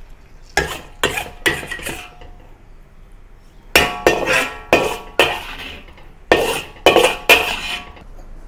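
Metal spatula scraping and clanking against a wok as stir-fried beef and tomato is scooped out onto a plate. The strokes come in three quick bursts of several strokes each, with pauses between.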